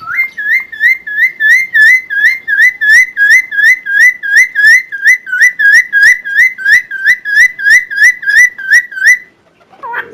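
A cucak timor songbird repeating one loud whistled note about three times a second, each note swooping down and back up. It stops a little after nine seconds, and after a brief pause a different, lower two-pitched phrase begins.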